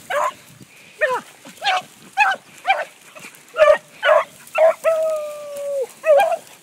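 A pack of beagles giving tongue while hunting: a run of short baying calls about every half second, and one longer drawn-out bay about five seconds in that drops in pitch at its end.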